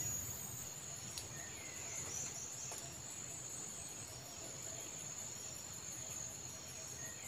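Quiet outdoor ambience in trees: a steady, high-pitched insect drone, with a few faint bird chirps about two seconds in and a single click about a second in.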